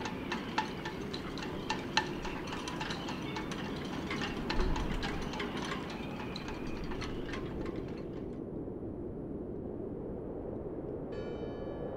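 Irregular metallic clinking and chiming, many light strikes in quick succession, over a steady low rush; the clinking stops about eight seconds in, and a bell starts ringing near the end.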